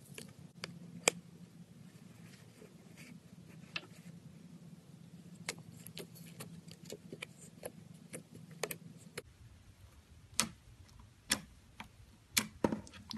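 Clear glitter slime being pressed and squeezed by hand, giving scattered sharp clicks and pops; a few louder pops come in the last few seconds.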